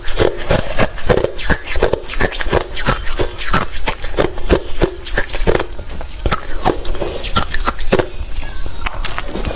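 Close-miked chewing of hard refrozen crushed ice: rapid, irregular crunching and cracking, several bites a second.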